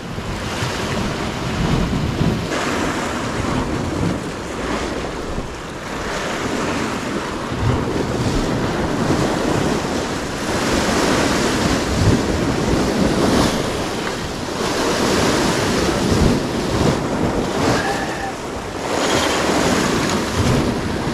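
Sea surf breaking and washing against shoreline rocks, swelling and ebbing every few seconds, with wind buffeting the microphone.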